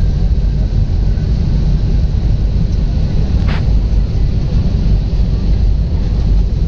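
Jet airliner cabin noise on final approach: a steady low rumble of engines and airflow heard from inside the cabin. A brief click sounds about halfway through.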